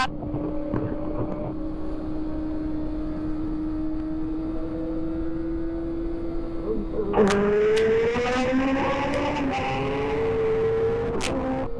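Kawasaki Ninja sport bike's engine holding a steady note while cruising. About seven seconds in, the throttle is opened and it gets suddenly louder, its pitch rising as the bike accelerates.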